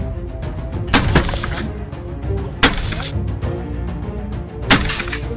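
Semi-automatic AR-15 rifle in .223/5.56 (an Oberland Arms OA-15) firing single shots a second or two apart, each with a short echo from the indoor range. Background music plays underneath.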